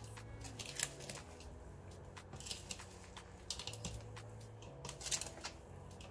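Plastic slotted spoon stirring chunky potato salad in a plastic mixing bowl: irregular short scrapes and clicks of the spoon against the bowl and the food, over a low steady hum.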